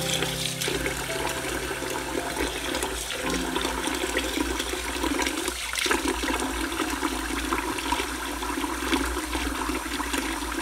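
Tap water pouring steadily into a glass bowl of rinsed basmati rice, filling it to submerge the grains for soaking.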